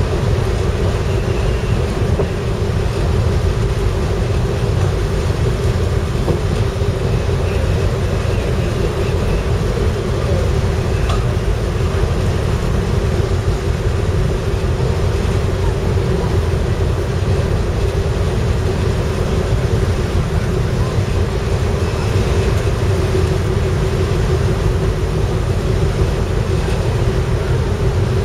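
Car ferry's machinery running: a steady low rumble with a constant hum.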